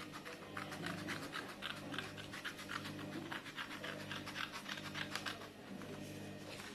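Scissors snipping through folded paper in a quick run of short cuts, thinning out near the end, over a steady low hum.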